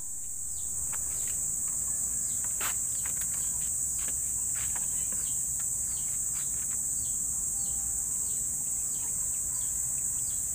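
Steady high-pitched drone of insects, with a long run of short falling chirps over it and one sharp click about two and a half seconds in.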